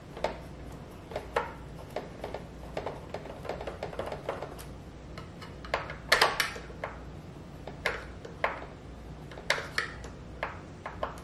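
A screwdriver turning screws out of a Roomba 614 robot vacuum's plastic chassis, with irregular light clicks and taps of metal on plastic. A few louder clatters come about six seconds in and again near nine and a half seconds.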